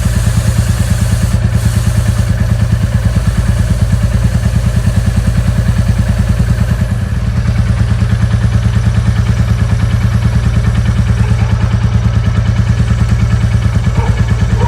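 Royal Enfield Classic 350 Reborn's single-cylinder engine running steadily at a low, even pace with a rapid regular beat.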